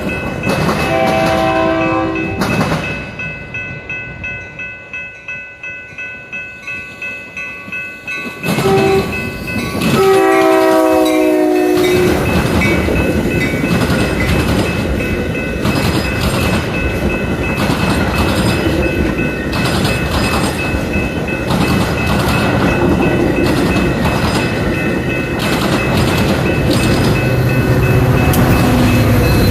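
Metra commuter train horn sounding a chord briefly, then a second longer blast about nine seconds in that drops in pitch as the train passes. Between the blasts comes a rhythmic clatter of wheels, about three a second. After the second blast, the steady loud rumble of the passing trains runs on.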